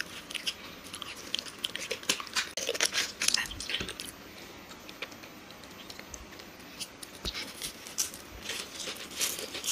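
Close-miked chewing and mouth sounds of people eating chocolate snacks: wet smacking clicks that come in two busy stretches, a couple of seconds in and again near the end, with quieter chewing between.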